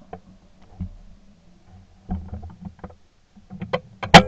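Shotgun fired once, loud and sharp, near the end. Before it come a few seconds of light clicks and knocks, and at the very start the fading tail of an earlier shot.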